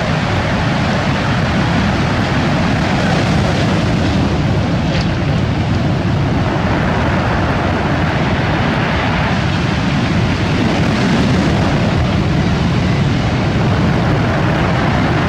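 Rough sea surf breaking and washing over a pebble beach: a loud, steady rush of noise.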